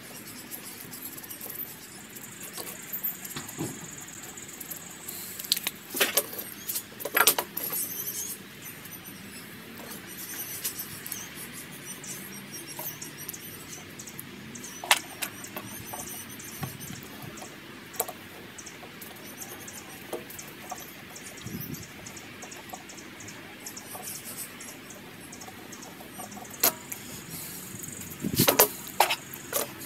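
Scattered light clicks and knocks of hand tools being handled at a stopped metal lathe, a marker pen and a digital caliper against the chuck and workpiece, over a steady background hiss; a cluster of louder clicks comes near the end.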